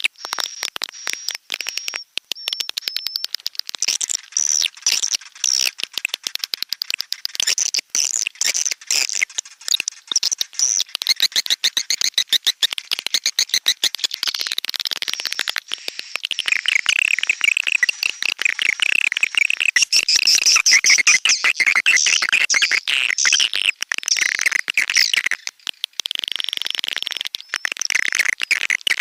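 Recorded swiftlet calls played as a swiftlet-house lure track: dense, rapid chattering chirps and clicks, with thicker, busier twittering from about halfway through.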